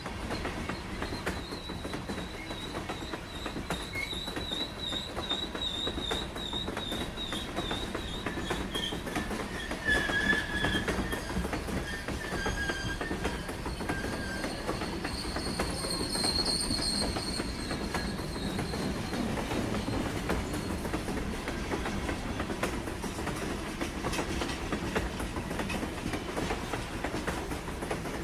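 Train passing close by: a steady rumble of its wheels on the rails, with metal wheel squeal rising and falling over it. A wavering high squeal runs through the first several seconds, a louder squeal comes about ten seconds in, and another high squeal comes a few seconds later.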